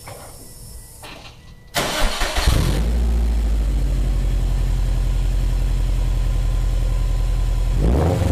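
2007 Subaru Impreza WRX STI's turbocharged 2.5-litre flat-four cranked by the starter and catching about two seconds in, then settling into a steady idle through a Blitz Nur Spec cat-back exhaust with its silencer insert fitted, which the owner calls quiet as can be.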